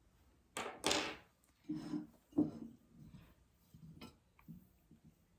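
Small objects being handled and set down on a tabletop: two sharp clacks near the start, then softer knocks and faint ticks as items are picked through.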